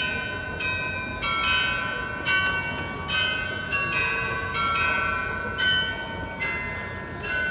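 The bells of the Munich Rathaus-Glockenspiel playing a tune. A new note is struck about every half second, and each rings on under the next.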